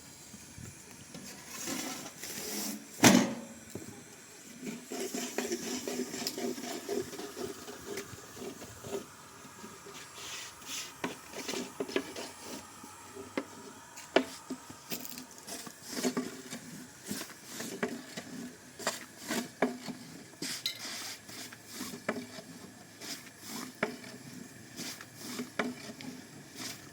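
Scattered clinks and knocks of kitchen utensils and dishes during bread making, with one louder knock about three seconds in.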